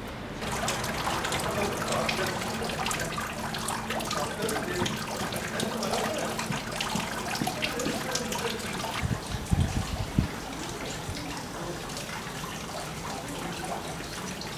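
Water from a stone courtyard fountain splashing and trickling steadily, with a few low thumps about two-thirds of the way through.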